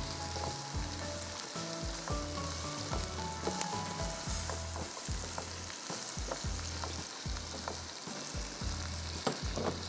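Sliced onions and green capsicum sizzling in hot oil in a non-stick wok as they are stir-fried, with frequent light scrapes and taps of the spoon against the pan.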